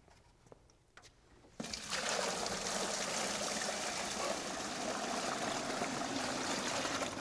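Water poured from a plastic bucket, splashing into a clear container holding drain tile and draining away. The pour starts suddenly about one and a half seconds in and runs steadily.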